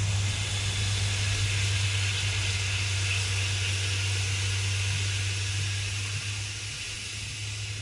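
Cowboy coffee boiling over from a small kettle onto a hot camp-stove burner, hissing and sizzling steadily as it throws off steam, over a steady low hum. The hiss eases off slightly near the end.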